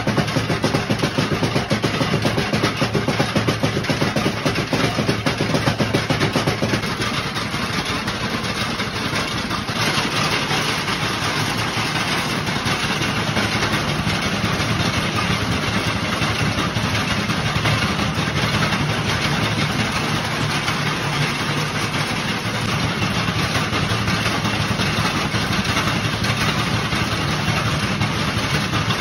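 Motor-driven spice-pounding machine, a row of iron pestles thudding rapidly into a trough of dried red chillies and grinding them down to chilli powder, over a steady motor hum.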